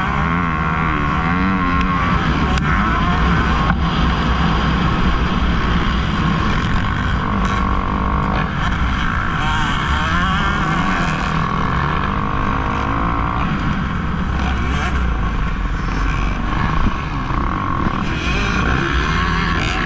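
Kawasaki KX250F motocross bike's single-cylinder four-stroke engine, heard from on board, revving up and down without a break as it is ridden hard around the track.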